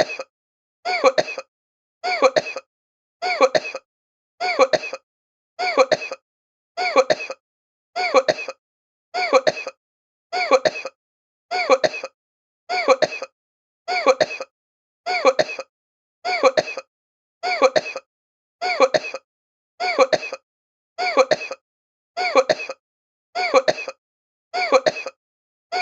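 A short human cough, the same clip repeated about every 1.2 seconds with silence between, each cough about half a second long with a few quick bursts.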